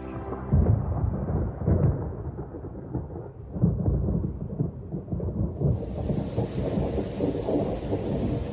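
Thunder rolling through a storm, with loud peals just after the start and about three and a half seconds in. About six seconds in, the hiss of heavy rain joins the rumble.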